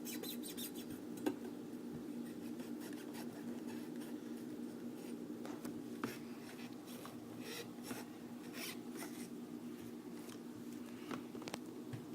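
Knife sawing and scraping at a solid rubber bouncy ball: faint, intermittent rasping strokes with a few sharp clicks, the rubber hard to cut through.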